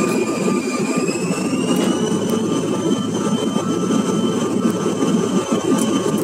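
Cabin sound of a Bombardier CRJ1000's rear-mounted GE CF34 turbofan engines spooling up: a whine rises in pitch over the first two seconds or so, then holds steady over a steady rumble.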